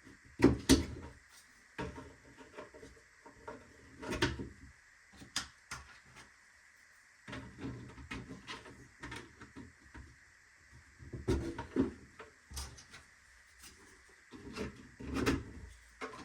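Irregular clicks, knocks and light scraping of 3D-printed plastic toolbox parts being handled and slotted together by their tabs, in scattered clusters with the loudest knocks about a second in.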